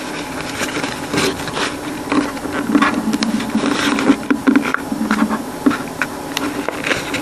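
Thin box cardboard being folded and creased by hand, giving irregular crinkling, scraping and clicking, over a steady low hum.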